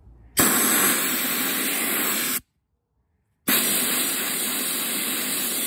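Hand-held gravity-feed soda blaster firing regular baking soda with compressed air at a painted steel wheel to strip glue residue. Two bursts of loud, even hiss: the first about two seconds long, then after a one-second pause a second burst that runs on.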